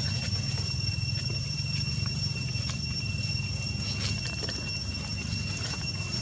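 Insects droning in the forest: a steady, high-pitched whine held at one pitch, over a low rumble with a few faint clicks.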